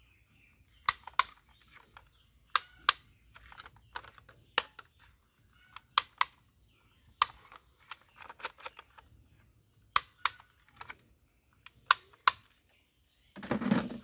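Sharp plastic clicks from a green toy rifle as it is handled, often in pairs a quarter second apart, every second or two. A short, louder rustling knock near the end.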